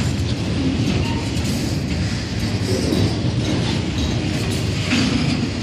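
Norfolk Southern double-stack intermodal freight train passing close by: a steady rumble of steel wheels on the rails, with the clatter of the well cars going over the track.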